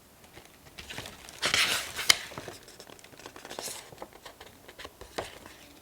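Paper and plastic stationery packaging rustling and crinkling as items are handled and lifted from a box, in scattered bursts with a sharp click about two seconds in.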